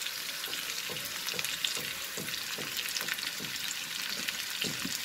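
Potato strips sizzling and crackling in hot mustard oil in a frying pan as sliced onions are added.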